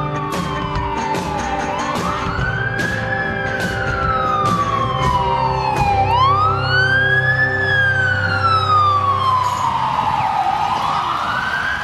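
Fire-department district chief vehicle's siren sounding a slow wail: the pitch rises quickly and falls slowly, about every four and a half seconds. It grows louder toward the middle as the vehicle passes.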